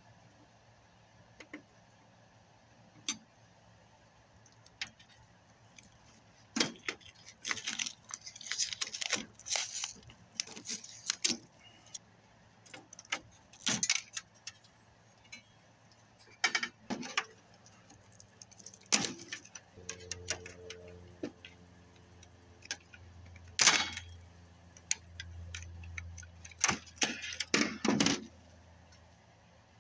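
Screwdriver and loose screws clicking and rattling on a flat-screen TV's sheet-steel board bracket, with knocks and scrapes as a circuit board is worked free and handled. The sharp metallic clicks come in scattered clusters. A low steady hum joins for several seconds in the second half.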